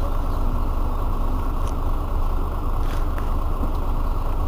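Irisbus Citelis 12 city bus's rear-mounted engine idling steadily, an even low rumble.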